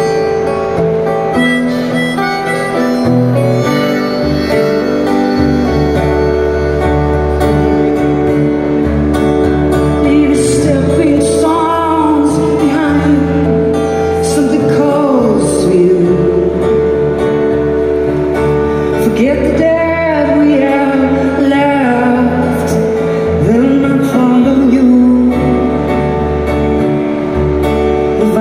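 Live band playing a slow folk-rock song on acoustic guitar and keyboards, with a harmonica carrying a wavering, bending melody line through the middle of the passage.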